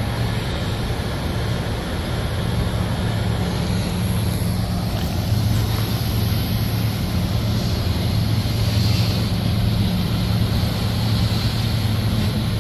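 Freight cars rolling past on the track: a steady rumble of steel wheels on rail, with a low steady hum beneath it.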